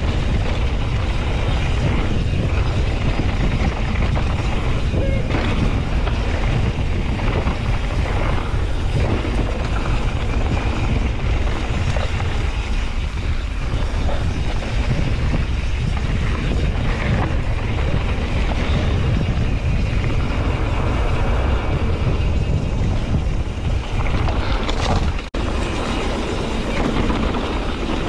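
Wind rushing over the microphone of a mountain bike riding down a dirt trail, a steady low buffeting rumble mixed with tyre and trail noise. The sound cuts out for an instant about 25 seconds in.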